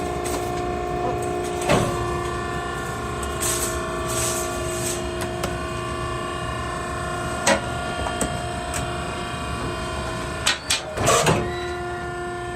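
Maren cardboard baler's hydraulic power unit running with a steady hum, broken by a few short knocks and clatters, the loudest cluster about eleven seconds in.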